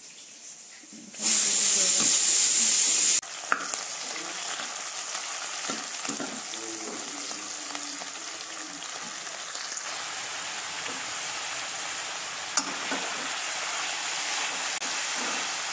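Sliced onions going into hot oil in a wok: a loud sizzle about a second in that lasts about two seconds, then a steady sizzle of frying with a metal ladle stirring. A sharp clink near the end.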